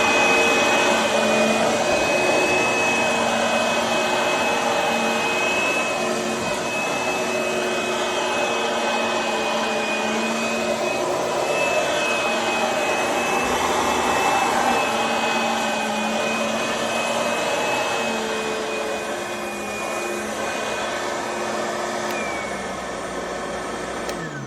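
Kenmore BU1001 bagged upright vacuum cleaner running steadily on its high speed setting: a high motor whine over a hum. Near the end it is switched off and the motor winds down, its pitch falling away.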